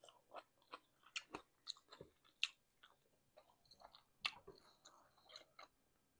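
Faint mouth sounds of someone chewing a cheddar hot link in a bun: an irregular run of soft wet smacks and clicks, about two or three a second, that stops shortly before the end.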